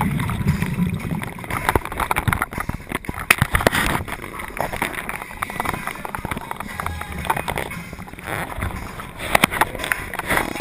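Muffled underwater sound heard through a camera housing: a low gurgling, like scuba bubbles, with scattered knocks and clicks throughout.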